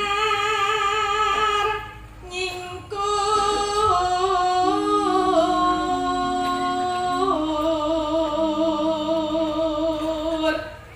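A Javanese sinden (female gamelan singer) singing solo into a microphone: long held notes with a strong vibrato, in two phrases with a short break about two seconds in.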